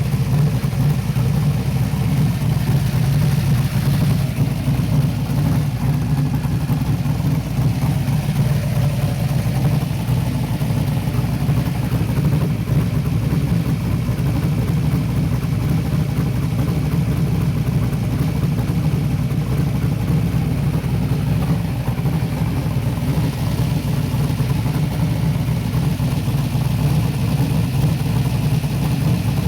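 Car engine idling steadily with no change in speed, run while the cooling system is burped of trapped air.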